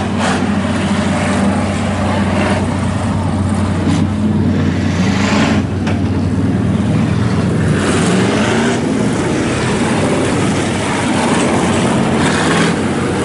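Several IMCA Hobby Stock dirt-track race cars' engines running together, a steady loud drone with slight rises and falls in pitch.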